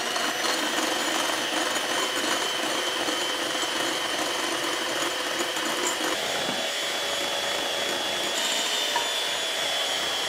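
Electric hand mixer running steadily with a thin high whine, its beaters whipping egg whites in a glass bowl while hot sugar syrup is drizzled in for nougat.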